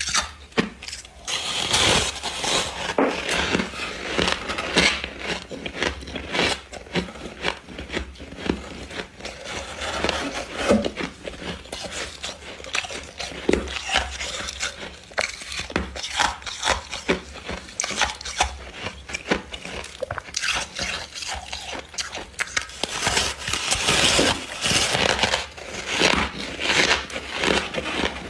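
Freezer frost being bitten and chewed close to the microphone: dense, irregular crackling crunches that go on without a break.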